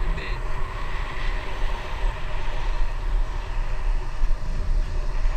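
Wind rushing over a GoPro's microphone while riding a bicycle along a paved path, with road noise from the tyres: a steady low rumble.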